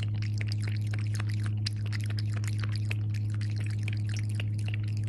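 A steady low electrical hum, with rapid, irregular ticks over it.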